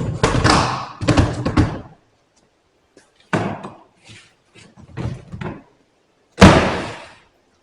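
Plastic storage totes sliding along the rails of a tote rack with a scraping sound, then a few shorter scrapes and knocks. The loudest moment is a hard thump about six seconds in, as a tote is pushed home.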